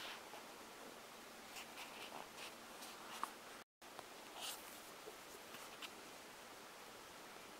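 Faint handling noise of fingers tapping and rubbing on a Jolla smartphone and its leather flip case: scattered soft clicks and rustles, with one sharper click about three seconds in.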